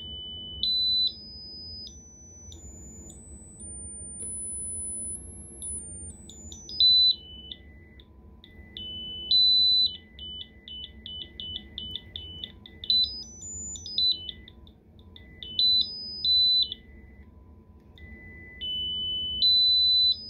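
Piezo speaker salvaged from a carbon monoxide detector, driven by a signal generator. It sounds one shrill tone that steps up in pitch to a very high whistle, comes back down, and then hops quickly back and forth between two notes. It is much louder at some pitches than at others.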